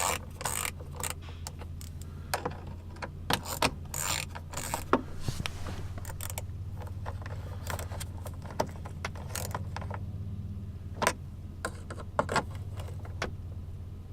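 A hand tool clicking as it tightens the loose nuts behind the heater control knobs on the dash. The clicking is quick and busy for the first few seconds, then comes as scattered single clicks, over a steady low hum.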